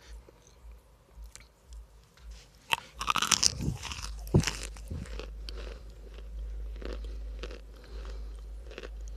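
Baked cornstarch chunks being bitten and chewed: a few faint crackles, then a loud crunch about three seconds in and a burst of dense crunching that settles into steadier, quieter chewing.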